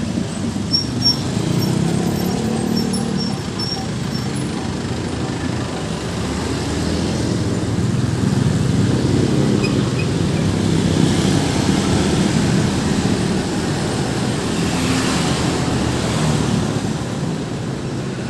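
Road traffic passing: vehicle engines running with a steady low rumble and tyre noise, one vehicle passing closer and louder about fifteen seconds in.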